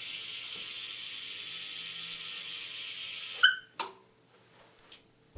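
BMX rear hub's freewheel pawls buzzing steadily as the back wheel spins. The buzz stops suddenly about three and a half seconds in with a short squeak and click, and two softer clicks follow.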